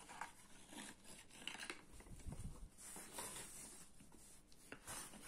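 Faint rustling and scraping of a small cardboard box being handled and opened as a toy car is taken out, with a few light ticks.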